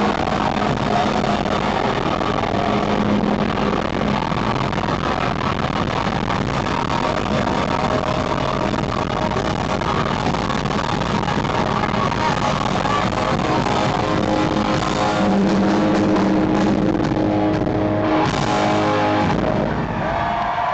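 Live hard rock band playing loud through a stage PA, with distorted electric guitar on a Les Paul-style guitar over bass and drums, heard from the audience. The full band drops out just before the end.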